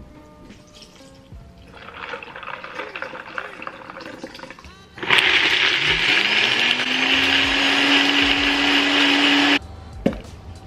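Almond milk pouring from a carton into a Nutribullet 1200 Series blender cup. About five seconds in, the blender motor starts suddenly, its whine rising as it spins up, and it runs for about four and a half seconds blending the cashews and milk before cutting off abruptly.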